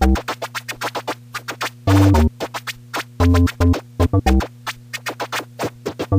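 Hip-hop instrumental with turntable scratching: quick, choppy scratch strokes and hard drum hits over a steady bass note.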